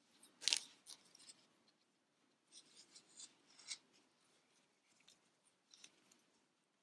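Faint rustling and scraping of grey yarn being drawn through crocheted fabric with a metal yarn needle. It comes in short strokes: the loudest about half a second in, a run of several around three seconds, and one more near six seconds.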